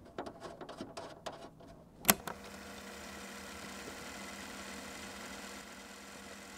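Light, irregular metallic clicks of a nut and bolt being worked on a steel tailgate, ending in one sharp click about two seconds in. After that only a faint steady hum remains.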